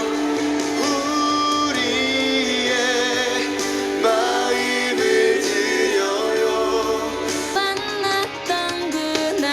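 Gospel song with female singing, played through a Jojocat C10 mini Bluetooth speaker and picked up by a microphone. The sound is light and thin, with almost no bass below about 250 Hz.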